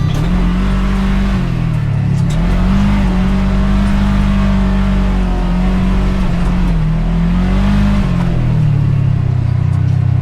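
Side-by-side UTV engine running as it is driven, its pitch rising and falling several times as the throttle is worked, settling lower near the end.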